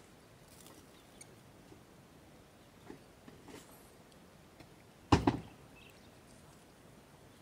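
Faint rustling and tearing of water buffalo grazing on grass and leafy shrubs, with a sudden loud thump about five seconds in.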